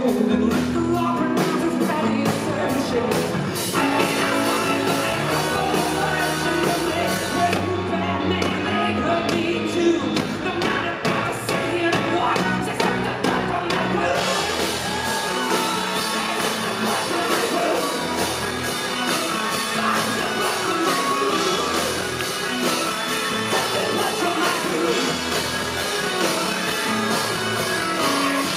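Live rock band playing: electric guitar, drums and a man singing and shouting into the microphone. A steady cymbal beat ticks through the first half.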